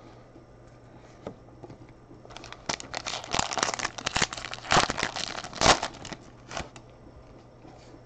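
A foil trading-card pack wrapper crinkling and tearing as it is ripped open: a dense crackle of about four seconds starting a little over two seconds in, with two sharper, louder rips in the second half.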